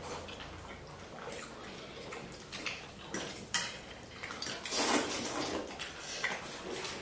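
Close-up eating of chicken thukpa noodle soup: wet slurps of noodles and broth with chewing between them and a few light clicks. The longest slurp comes about five seconds in.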